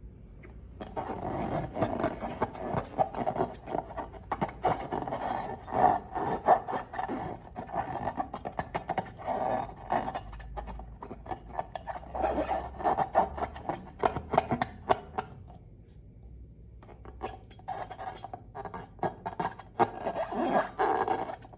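Slime being worked by hand: a dense run of sticky crackles, squelches and rubbing clicks. There is a short pause about two-thirds through.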